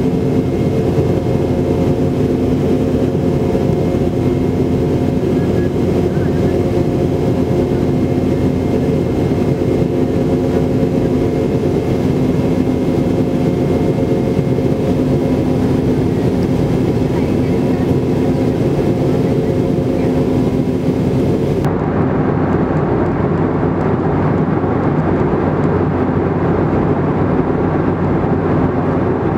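Cabin noise inside a Boeing 717-200 in flight: a steady rush of air with the drone of its rear-mounted Rolls-Royce BR715 turbofans and several steady hum tones. About three-quarters of the way through the sound changes abruptly, the tones and the upper hiss dropping out and leaving a duller rush.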